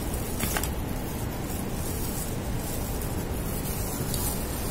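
Steady background noise hiss, with a couple of faint brief rustles about half a second in and near the end.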